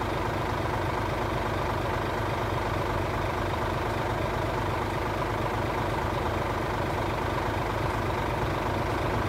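A steady engine idling, an even hum that does not change.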